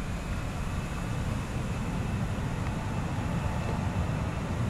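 Airbus A319 jet engines at high power for the takeoff roll: a steady deep rumble growing slightly louder, with a faint high whine.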